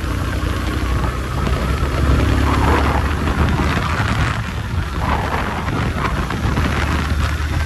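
Motorcycle engine running at road speed with a steady low drone, under wind rushing across the microphone.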